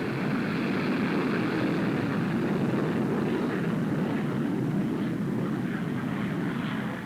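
Aircraft engine noise on an old film soundtrack: a steady rushing drone that fades out near the end.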